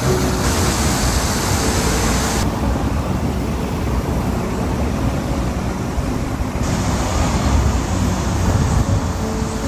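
Steady low rumble of city traffic under the hiss of rain on wet ground. The hiss drops away abruptly about two and a half seconds in and comes back near seven seconds.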